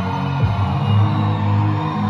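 Live indie-pop band playing through a concert PA, heard from the audience: a bass line of sustained notes under keyboards, guitar and drums, with a drum hit about half a second in.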